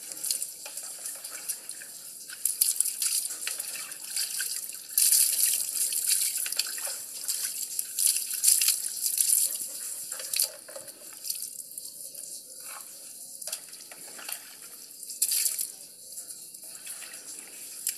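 Water splashing in bursts as it is poured from a container over a dog being bathed.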